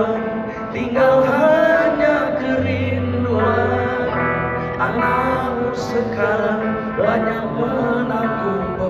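Live music over a PA: an electric guitar played with a man singing long, wavering held notes over a steady low bass.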